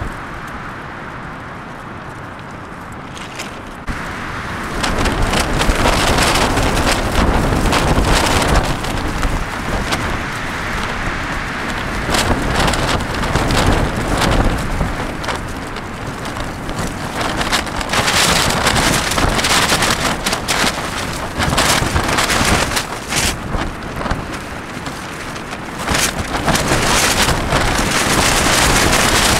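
Strong wind gusting against a tent, the fabric flapping and crackling, with wind rumble on the microphone. The gusts pick up sharply about four seconds in, then rise and fall in surges.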